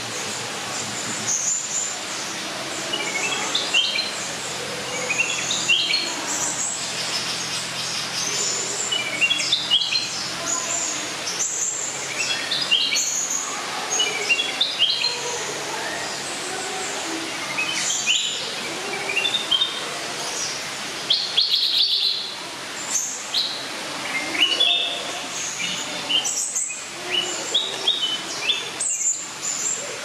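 Blue-crowned hanging parrot calling: short, high chirps in quick stepped phrases, repeated every second or two over a steady background hiss.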